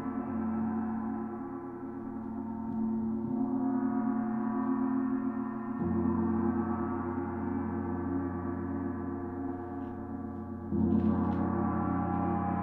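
Oetken Sedna 28-inch planetary gong played with a soft mallet: a sustained, layered ringing of many overtones, renewed by fresh strokes about halfway through and again near the end.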